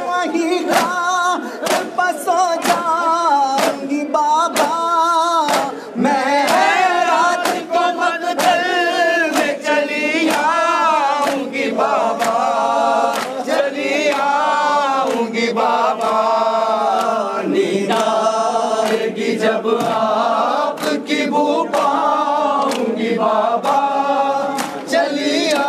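Large crowd of men chanting an Urdu noha in unison, with sharp slaps of open-handed chest-beating (matam) landing in time, about twice a second.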